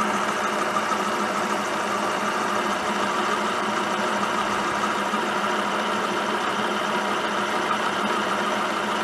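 Machine spindle turning an offset boring head, its boring bar taking a light cut inside a bore in a metal part: a steady running machine sound at an even level.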